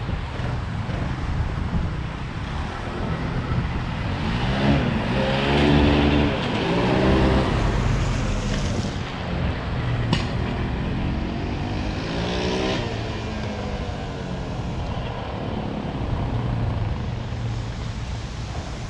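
Yamaha Raptor 700 ATV's single-cylinder engine revving as it is ridden, its pitch sweeping up and down, loudest around five to eight seconds in and again around twelve seconds in. A sharp click about ten seconds in.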